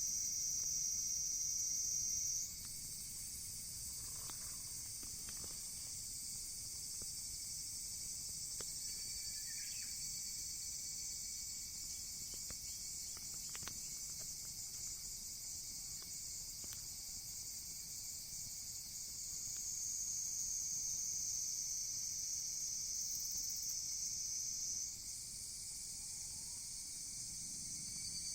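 Steady high-pitched insect chorus, crickets shrilling without a break. The sound drops in level and jumps higher in pitch about two seconds in, swells again in the lower register later, and jumps back up near the end. A few faint ticks sound under it.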